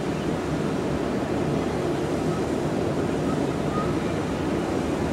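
Steady, even noise of distant jet airliners taxiing across an airport apron.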